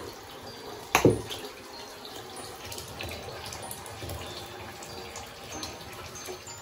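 Tap running into a filling bathtub, a steady splashing rush of water. About a second in, something dropped into the bathwater lands with a loud plop whose pitch drops quickly.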